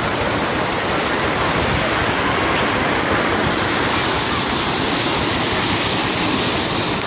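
Muddy floodwater of a flash flood rushing steadily down a wadi channel.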